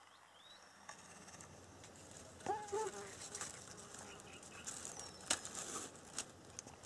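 Outdoor waterside ambience with a short pitched call about two and a half seconds in, a faint falling whistle near five seconds, and a few sharp clicks in the second half.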